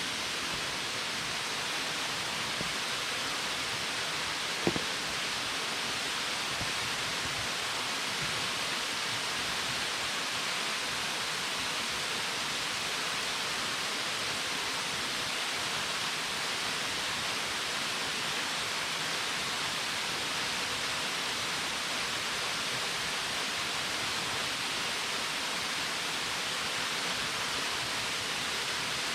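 Waterfall pouring steadily in a gorge, an even hiss of falling water, with one faint click about four and a half seconds in.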